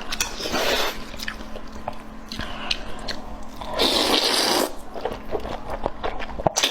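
Close-miked eating: biting and chewing with wet, squishy mouth clicks and smacks, and two longer wet bursts, about half a second in and again about four seconds in.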